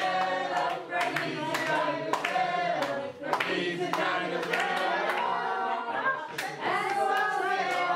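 A group of people singing together, with hands clapping along in time.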